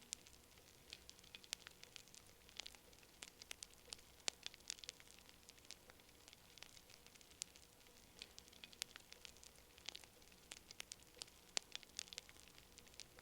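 Campfire crackling: irregular sharp pops and snaps of burning wood, several a second, some much louder than the rest.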